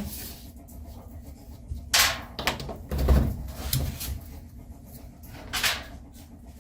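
A few scattered knocks and rubs as the aluminium angle is handled against the metal garage door panel; the loudest is a dull thump about three seconds in.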